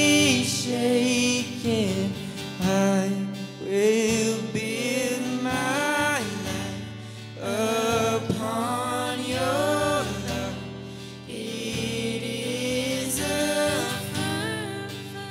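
Gospel worship song: vocalists singing a held, wavering melody over acoustic guitar chords.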